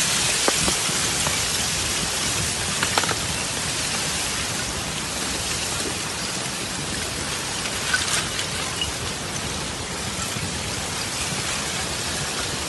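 Ice shove: broken river ice being pushed up onto the bank, the ice shards grinding and crumbling in a steady crackling hiss, with a few sharper cracks about half a second, three and eight seconds in.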